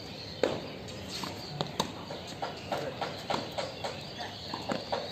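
Tennis rally on a hard court: sharp pops of the ball off the rackets and the court surface, the loudest about half a second in and another near two seconds, then a run of quick steps and shoe scuffs, about three a second, as a player moves to the ball.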